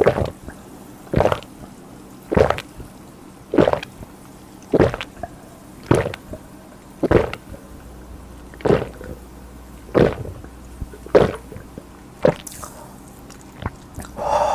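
A person gulping carbonated cola in big swallows straight from a mug, close up: about eleven gulps, one a little more than every second, in a steady rhythm that stops near the end.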